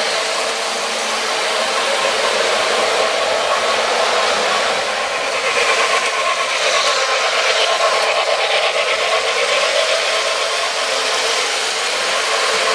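Several O gauge electric model trains running on three-rail track, a steady mechanical running noise of motors and wheels on the rails.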